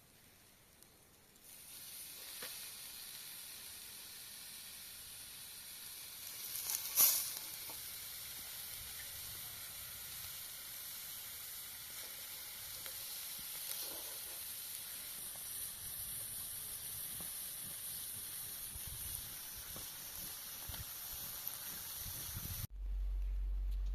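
Kebab meat sizzling steadily as it cooks, with one louder crackle about seven seconds in. Near the end it cuts off suddenly to a steady low hum.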